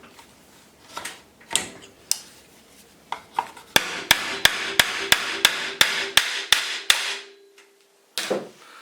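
Hammer driving a nail held in plastic nail holder pliers: a few scattered taps to start the nail, then a quick run of about a dozen strikes at roughly three to four a second, followed by a short knock near the end.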